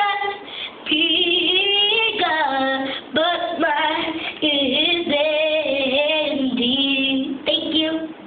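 A young girl singing solo, phrase after phrase of long held notes with a wavering vibrato, the last phrase ending just before the close.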